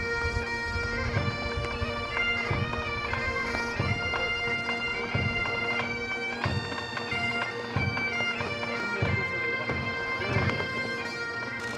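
Bagpipes of a military pipe band playing a tune over their steady, unbroken drone.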